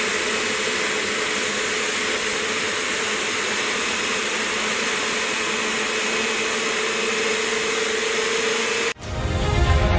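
Upholstery extraction cleaner's suction motor running steadily: an even rushing hiss with a faint steady whine. It cuts off abruptly near the end, and music starts.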